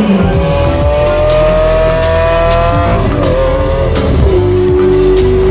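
A sports car engine accelerating hard: its pitch climbs steadily for about three seconds, dips at a gear change, then holds steady. Background music with a heavy bass beat plays underneath.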